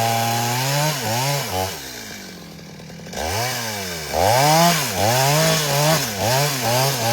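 Chainsaw engine held at high revs. About two seconds in it drops to a low idle, then is revved up and down repeatedly in quick throttle blips, about twice a second.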